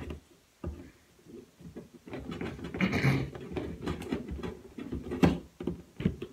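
Cardboard advent calendar box being handled and picked at, giving irregular small taps, clicks and scratching.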